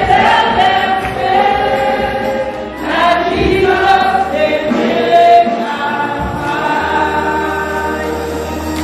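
Congregation singing a hymn together, many voices holding long notes.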